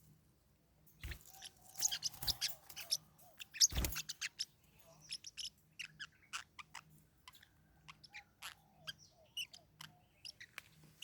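Forpus parrotlets chirping in many short, high calls. The calls come thickest in the first four seconds, with a few louder, sharper sounds among them, then thin out to scattered chirps.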